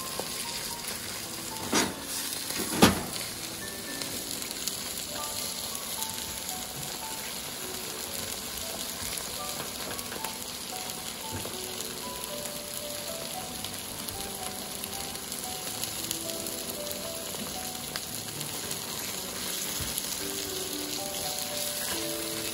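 Bacon frying in olive oil in a pan, a steady sizzle, with two sharp knocks about two and three seconds in.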